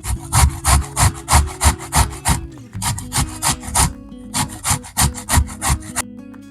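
Zucchini being grated on a metal grater: rapid rasping strokes, about three a second, with two short pauses, stopping about six seconds in. Quiet guitar music underneath.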